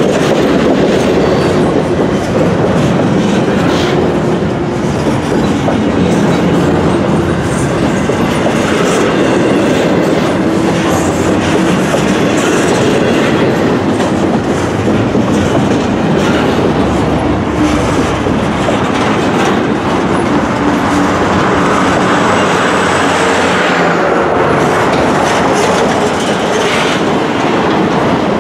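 Steel wheels of a double-stack intermodal freight train's container well cars rolling past at track speed. There is a steady, loud rumble with a continual clickety-clack over rail joints.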